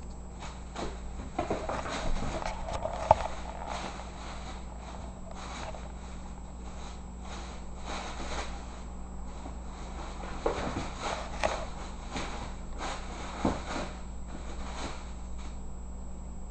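A bag rustling and crinkling in short, irregular bursts as a Siamese kitten plays in it, with one sharp click about three seconds in, over a steady low hum.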